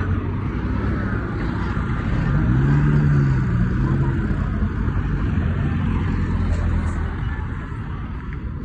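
Motor traffic rumbling steadily, with one vehicle's engine note rising and falling about two to four seconds in.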